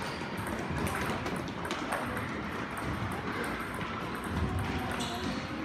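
Table tennis balls clicking off paddles and the table: several sharp, irregularly spaced knocks of play.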